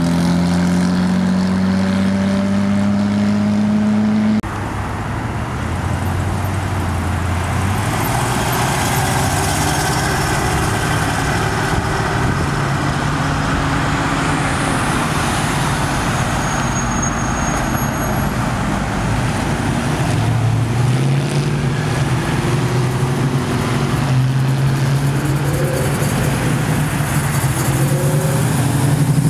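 Car engines on a street: a rising engine note as a car accelerates, cut off abruptly a few seconds in. Later a 1970s Chevrolet Camaro's engine rumbles low and steady as the car rolls up and past.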